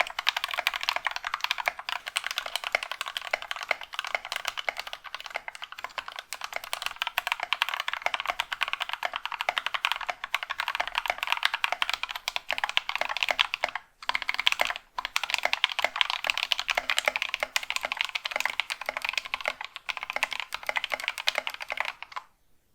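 Fast, continuous typing on a mechanical keyboard fitted with Gateron Yellow linear switches, lubed with Krytox 205g0 and filmed. Dense clacking keystrokes, with two short breaks a little past the middle, stopping just before the end.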